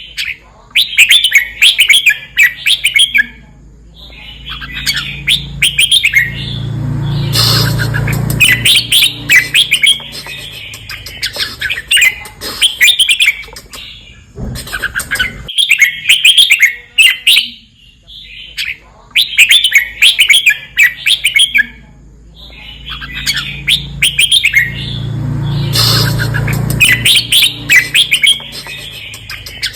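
Red-whiskered bulbul singing its 'bern' song: short bursts of bright chirping phrases repeated with brief pauses between them. A low hum swells up twice in the background.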